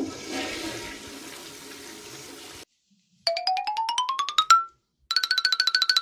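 A toilet flush rushes and fades over the first two and a half seconds. It is followed by a run of quick beeps climbing in pitch, then a fast electronic ringing trill at one steady pitch, like a cartoon sound effect or ringtone.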